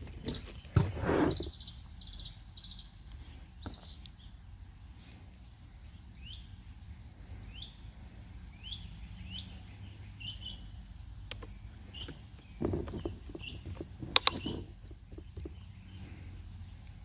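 A small bird chirping repeatedly in short rising notes, with bursts of knocking and clattering about a second in and again after about twelve seconds.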